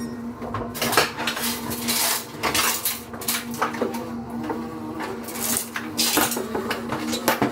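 Repeated metallic clanking and clinking, many quick knocks in irregular succession, over a steady low hum.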